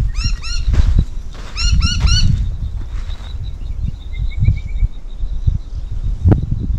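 A bird calling in two quick runs of chirps, then a short trill, with a faint steady high pulsing in the background, over a loud, uneven low rumble with scattered knocks.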